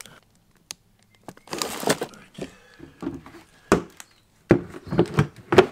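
Items being shifted inside a plastic chilly bin: plastic bags rustle and hard plastic ice packs and containers knock and click against each other and the bin walls in short bursts, busiest near the end.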